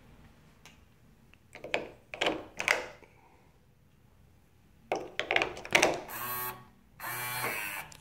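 Clicks and knocks of AA batteries being pressed into an electronic door lock's battery compartment, then, about six seconds in, two short electronic chime tones from the lock as it powers up, the sign that the lock has reset.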